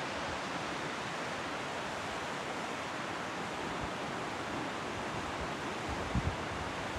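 Steady rush of a rocky mountain river's rapids over boulders. A brief low thump near the end.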